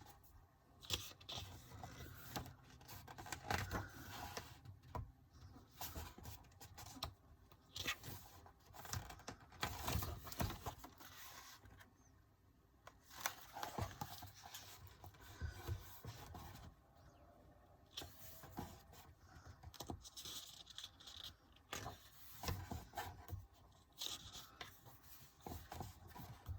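Quiet, irregular rustling, scraping and light tapping of paper as the pages of a K-pop album photobook are turned and handled.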